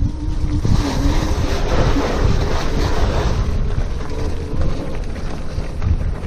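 Wind buffeting the microphone during an electric bicycle ride, a steady rumbling rush with tyre and road noise under it.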